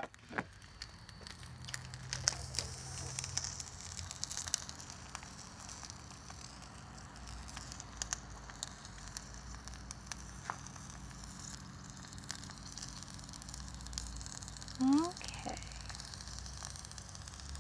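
Faint crackling from the hot charcoal grill, with scattered small clicks, and a brief rising squeak about fifteen seconds in.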